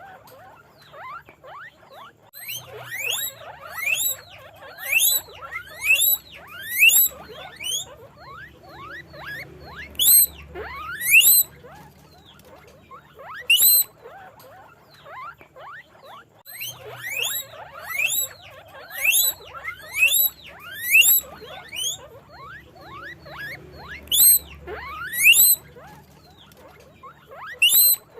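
Guinea pigs squeaking (wheeking): short high calls that each rise sharply in pitch, repeated about once a second in runs of several, with brief pauses between runs.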